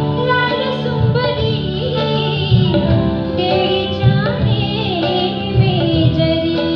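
A woman singing a Sufi song live, with long held notes that bend and slide in pitch, over an amplified band of violin, keyboard and electric guitar.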